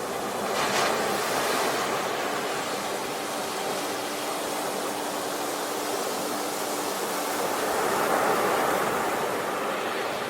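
Sea waves washing onto the shore in a steady surf, two swells rising and breaking, one about a second in and one about eight seconds in.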